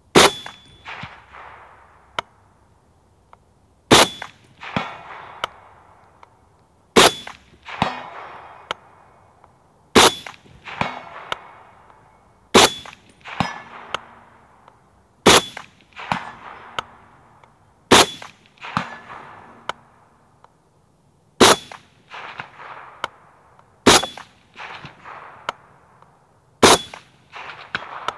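Suppressed Springfield Armory M1A Loaded rifle in .308 Winchester fired semi-automatically, slow aimed shots about every three seconds, ten in all. Each shot is followed within a second by a few fainter reports.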